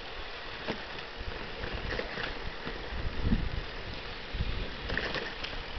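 Wind rushing over the microphone of a camera on a moving bicycle, with low gusty rumbles and a few faint clicks.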